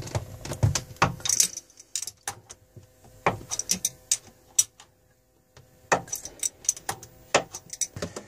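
Metal clicks and clinks of a hand tool working a drain valve on a Volvo Penta AQ211A marine engine block, in irregular clusters with a short pause about five seconds in.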